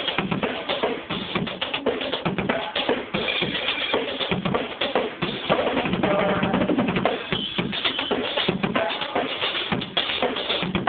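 Drum kit being played continuously for a sound check, with bass drum hits among the other drums and cymbals.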